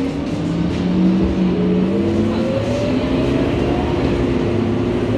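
Scania Euro 4 city bus accelerating, heard from inside the passenger saloon: the diesel engine and driveline whine climb steadily in pitch over about four seconds.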